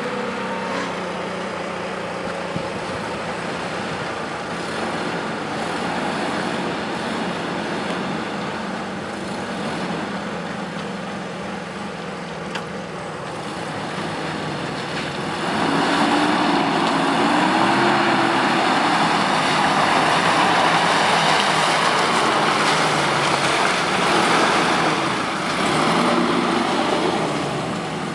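Off-road vehicle engine running under load, with wind and rolling noise. About halfway through it gets louder, and the engine pitch rises and falls as it is revved.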